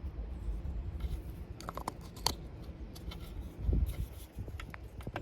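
Small clicks, snaps and rubbing from a plastic roof marker light and its rubber gasket being handled, as a second, thicker gasket is fitted onto the light. A couple of dull bumps come near the start and again a little past halfway.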